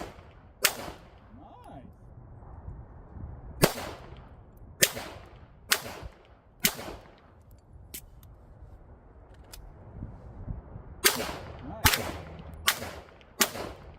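Pistol shots fired one at a time at clay pigeons, about a second apart: two near the start, a run of four, then a pause of about four seconds for the required magazine change, and four more near the end.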